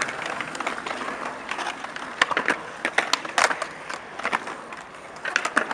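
Skateboard wheels rolling on smooth concrete, with a scattering of sharp clacks as boards hit the ground, bunched in the middle and near the end.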